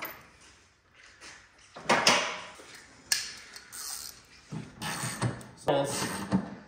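Metallic clanks, scrapes and rattles of a hand tool worked against a motorcycle frame and its lift, with a sharp knock about three seconds in.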